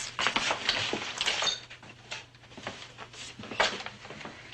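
Irregular light knocks, clinks and shuffling as people move about and leave, over a steady low hum.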